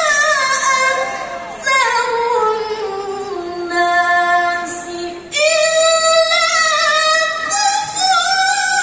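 A woman's voice reciting the Quran in the melodic tilawah style, holding long ornamented notes. The line sinks slowly in pitch over the first few seconds, breaks briefly about five seconds in, then starts again higher.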